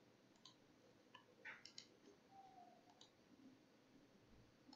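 Several faint computer mouse clicks, spaced irregularly over a few seconds.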